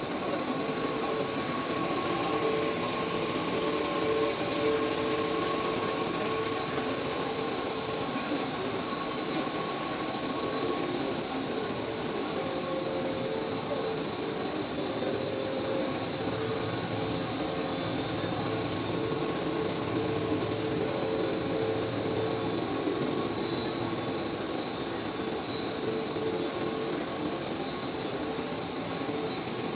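PE stretch film production machine running: a steady mechanical hum with several constant high-pitched whines over it.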